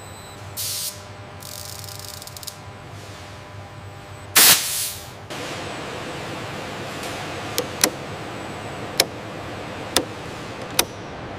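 Short bursts of hissing air, a louder burst of hiss about four and a half seconds in, then a run of about five sharp clicks from hand tools on pipe fittings.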